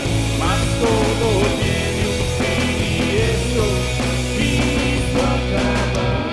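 Rock band playing a song in a rough demo recording: a lead line with bending notes over bass and drums.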